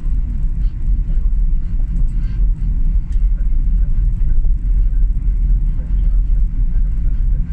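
Car driving along a paved road: a steady low rumble of engine and tyre noise.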